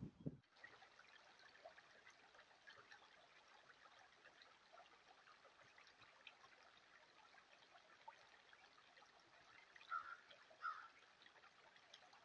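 Faint trickle of a shallow creek running over a riffle, with two short louder sounds about ten seconds in.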